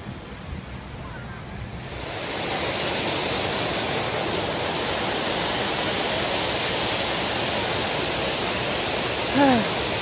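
Large plaza fountain's water jets splashing: a steady rushing hiss that comes up about two seconds in and holds.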